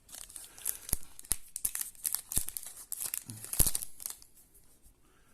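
A trading-card pack wrapper being torn open and crinkled: a run of sharp rips and crackles that stops about four seconds in.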